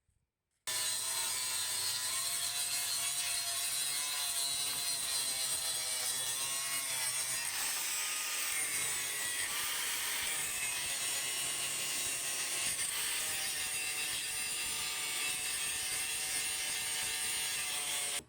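A handheld power tool running under load, with a motor whine that wavers in pitch over a harsh scraping hiss. It starts suddenly and cuts off suddenly.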